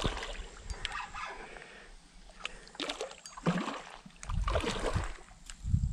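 A small hooked carp thrashing in the shallows at the bank, splashing the water in several irregular bursts.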